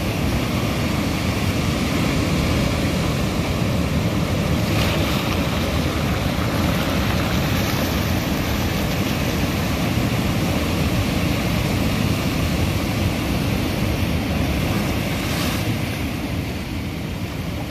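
Ocean surf breaking against a rocky shoreline and washing in foaming over the rocks and pebbles: a steady, loud rush of water.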